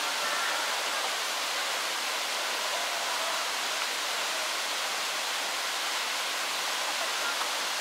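Steady rushing noise of running water, even throughout with almost no low rumble.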